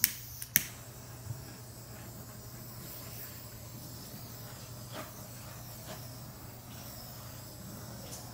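Two sharp clicks about half a second apart, then a steady hiss: a handheld torch lit and held over wet epoxy resin to pop surface bubbles.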